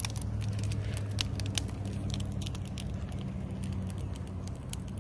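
Campfire crackling: scattered sharp pops and snaps over a steady low rumble.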